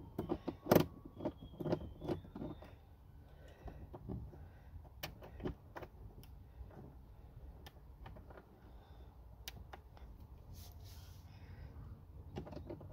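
Clicks and taps of a hand-held 7 mm socket driver working a glove-box bolt out of a car's plastic dash trim. The clicks come thick and fast in the first two seconds or so, then sparser, with the odd faint squeak.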